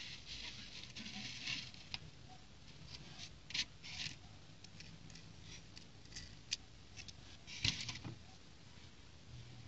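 Plastic building-brick pieces handled over a plastic plate: small clicks and scrapes as a toy jeep is picked up and bricks are pulled apart, with two louder snaps about three and a half seconds in and near eight seconds.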